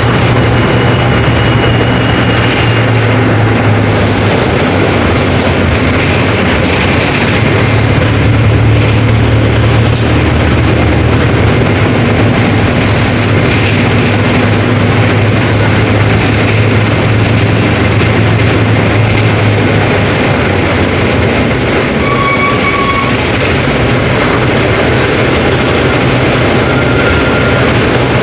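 Mercedes-Benz OF 1721 BlueTec 5 bus's diesel engine running with the bus under way, a steady low drone over the rumble and rattle of the bus. The drone eases off about twenty seconds in.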